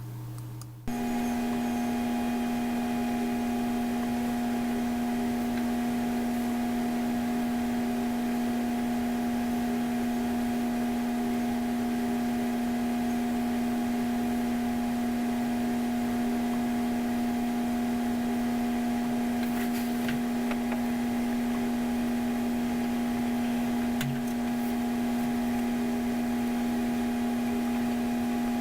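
A steady machine hum with a strong low tone and fainter higher whining tones, starting abruptly about a second in and holding level.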